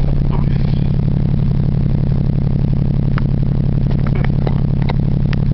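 Geo Metro's engine idling at a steady speed, with a few light clicks over it in the second half.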